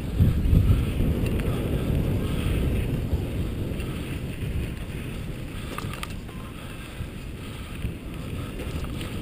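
Wind buffeting the microphone of a camera on a moving mountain bike, a steady low rumble mixed with the bike rolling over a dirt trail. It is loudest in the first few seconds and then eases.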